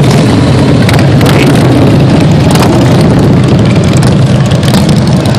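A column of motorcycles riding past close by, their engines running in a loud, steady low rumble.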